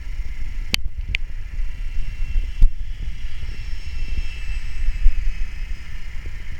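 Wind rumbling on the microphone over a faint, high, slightly wavering whine from a radio-controlled model helicopter in flight. Sharp clicks sound twice about a second in and once in the middle.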